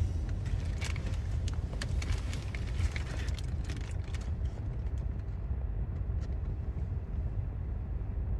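Steady low rumble of a car idling, heard from inside the parked car's cabin, with light rustling and clicks of handling during the first half.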